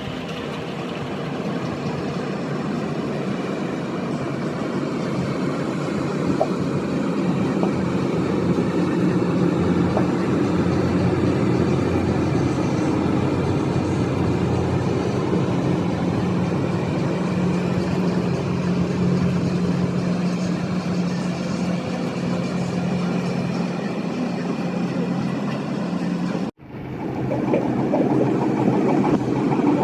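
Passenger boat's engine running steadily, a continuous low drone that grows a little louder over the first several seconds. It cuts out for a moment near the end, then resumes.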